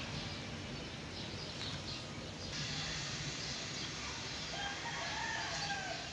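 A rooster crows once, a little over four seconds in, a single rising-then-falling call over a steady hiss of rain.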